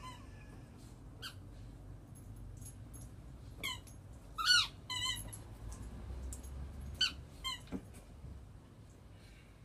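Rubber squeaky turtle toy squeaking as a puppy squeezes it in play: a series of short squeaks with bending pitch, the loudest and longest about four and a half seconds in.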